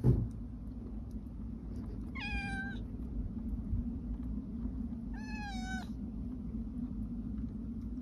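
Domestic cat meowing twice, two short calls about three seconds apart, each sliding slightly down in pitch, over a steady low rumble. A brief thump right at the start is the loudest sound.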